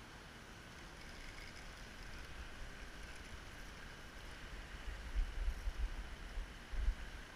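Steady rushing hiss of river water flowing below a dam, with irregular low wind buffets on the camera microphone that grow stronger in the second half.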